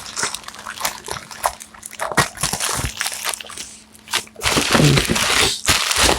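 Plastic courier packet being torn open and handled, with irregular crinkling, rustling and crackling of the packaging.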